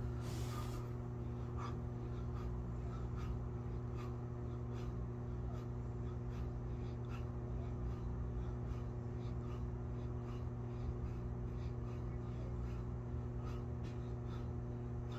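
A man doing push-ups on a carpeted floor, breathing with each repetition: faint soft puffs come about once or twice a second over a steady low hum in the room.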